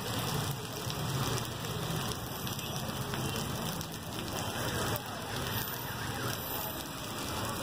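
Heavy rain falling on a wet street, a steady hiss, with a low rumble of traffic moving over the flooded road.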